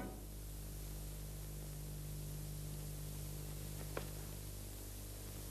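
Steady hiss and low hum of an old film soundtrack with nobody speaking, with a single faint click about four seconds in.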